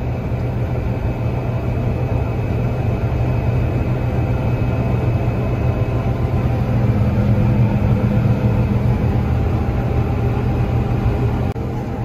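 Combine harvester running while cutting wheat, heard from inside the cab: a steady, loud drone of engine and threshing machinery with a strong low hum.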